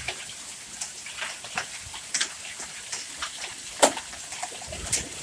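Hailstones striking the canopy and nearby vehicles: scattered sharp ticks and knocks over a steady hiss of rain, with one louder strike about four seconds in.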